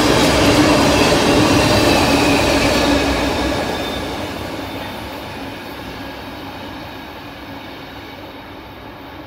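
Freight train tank cars of an oil train rolling past on steel wheels, with a steady tone under the rolling noise. About three seconds in, the last car goes by and the sound fades steadily as the train rolls away.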